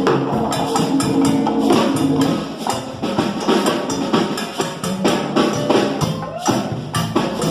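Salsa music with brisk, regular percussion strokes over sustained instrumental parts.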